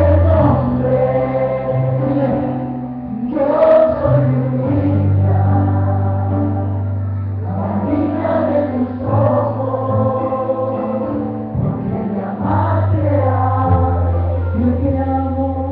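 Church worship music: a group of voices singing a slow praise song over a band, with long held bass notes that change every few seconds underneath. The music begins to fade right at the end.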